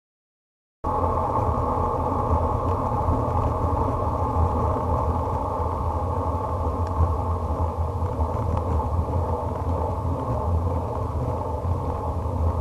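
Wind and road rumble on a bicycle-mounted action camera while riding a road bike: a steady, muffled low rumble that starts abruptly about a second in.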